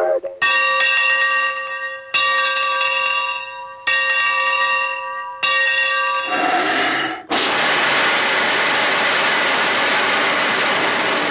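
Train sound effects: a locomotive-style bell struck four times, about one and a half to two seconds apart, each strike ringing out and fading. After that, about six and a half seconds in, a loud, steady hiss of escaping steam starts and keeps going.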